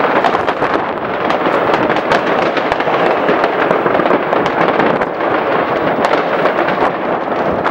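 Many fireworks going off at once all around: a dense, unbroken crackle with frequent sharp bangs and pops overlapping throughout.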